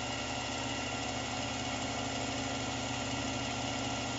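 Milling machine spindle spinning a fly cutter, a steady machine hum.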